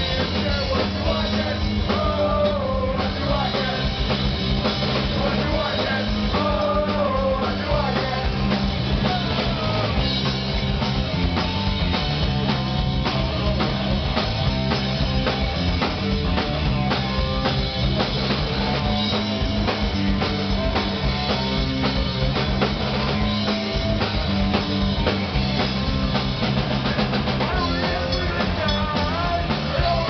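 Punk rock band playing live: drum kit, bass and electric guitar, with a vocalist singing in the first several seconds and again near the end.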